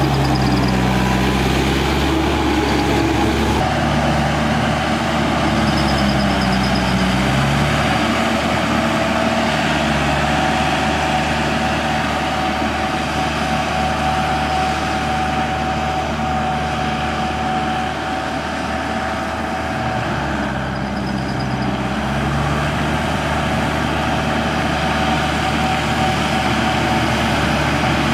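Yanmar YM 348A 4WD tractor's diesel engine running steadily under load while working a rotovator through flooded paddy mud; its pitch shifts a few times.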